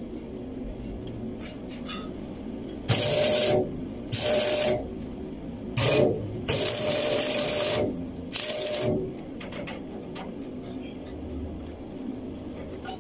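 Stick-welding (shielded metal arc) arc crackling and buzzing in five short bursts as tack welds are struck at a steel pipe-to-elbow joint, with a steady background hum between them.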